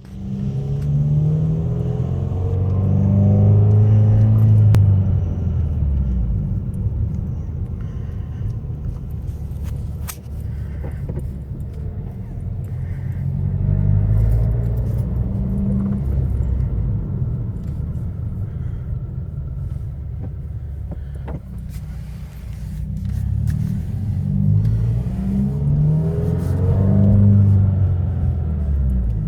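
2016 Subaru WRX turbocharged flat-four engine running, its speed rising and falling three times about ten seconds apart. The owner suspects the unusual noise is the turbo's turbine scraping the housing walls.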